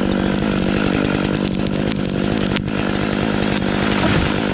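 Chainsaw engine running at steady high revs, holding one even note.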